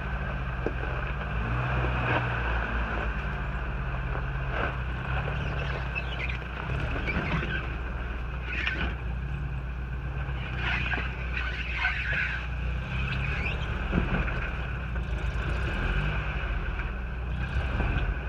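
A Toyota Hilux 4WD pickup's engine runs with a steady low drone while the truck is driven off-road, with scattered knocks and clattering through the middle.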